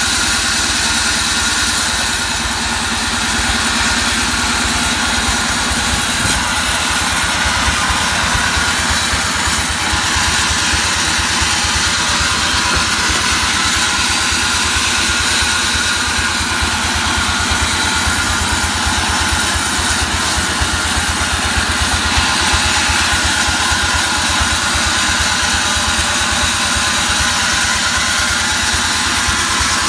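Vertical band sawmill running steadily, its blade sawing lengthwise through a mahogany log as the log is pushed through, over a fast, even pulse from the machine's drive.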